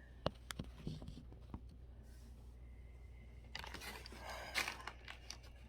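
A few light clicks and knocks, then, from a little past halfway, the crinkling of a plastic parts pack being handled and opened.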